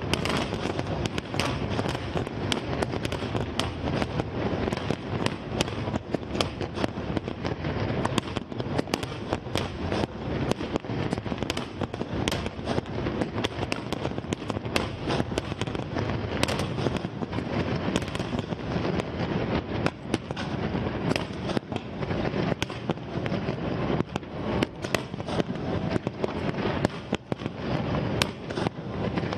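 Fireworks display: aerial shells bursting one after another in a dense, unbroken run of bangs.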